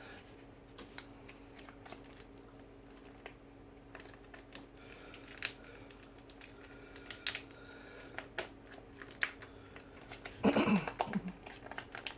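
Scattered light clicks and taps of kitchen utensils against the dish while Alfredo sauce is added to the pasta pan, over a faint steady hum. A short vocal sound comes near the end.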